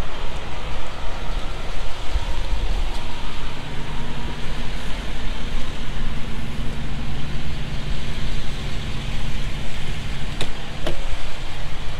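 Steady drone of idling semi-trucks in a parked row, with a low engine hum that steadies about four seconds in. Two sharp clicks come close together near the end.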